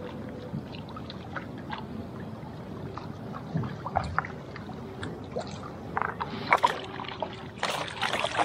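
Small waves lapping and sloshing at the shoreline, with scattered small ticks. In the last second or so a fishing lure retrieved into the shallows splashes at the surface.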